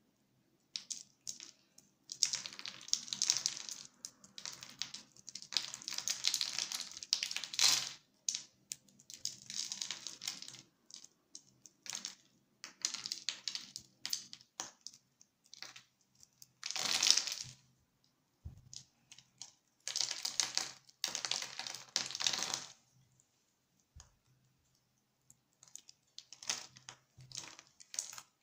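Utility-knife blade cutting a bar of soap into small cubes: crisp crunching and clicking in runs of a few seconds, with short pauses between them.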